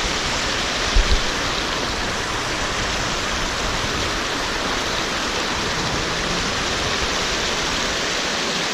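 Steady rush of a mountain stream's fast-flowing water, with one brief low thump about a second in.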